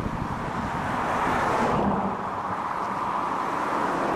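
Outdoor wind and lake-water noise: a steady rushing hiss with no distinct engine tone in it.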